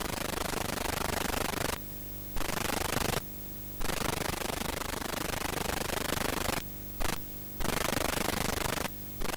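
Steady static hiss with no picture, broken by five brief dropouts in which the hiss cuts out and only a faint low hum is left.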